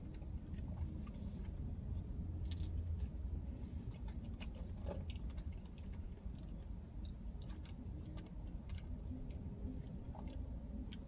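Close-miked chewing of pizza: wet mouth sounds with scattered small clicks and crunches over a steady low rumble.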